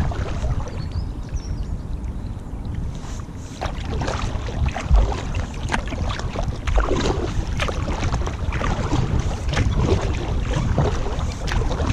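Kayak paddle blades dipping and splashing in the water, stroke after stroke, over a low wind rumble on the microphone, with one low thump about five seconds in.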